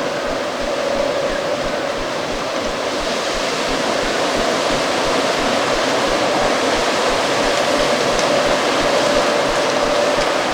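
Stormy wind blowing in a steady rush, with a wavering whistle held at one low pitch over it. The wind grows slightly louder toward the end.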